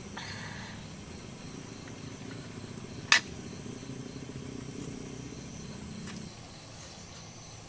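Insects, likely crickets, trilling steadily in the background over a low, even rumbling noise that stops about six seconds in. A single sharp click or snap about three seconds in is the loudest sound.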